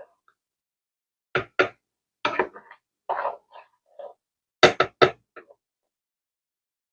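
Irregular sharp knocks and clatters of cookware, about seven in four seconds, a few in quick pairs.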